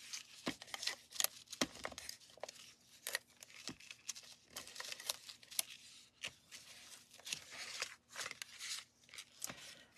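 Cardstock and ribbon being handled on a craft desk: irregular crisp paper rustles and small clicks and taps.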